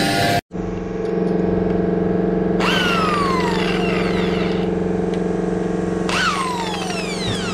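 Corded electric drill run briefly twice, each time spinning up fast and then winding down over about a second and a half, over a steady machine hum.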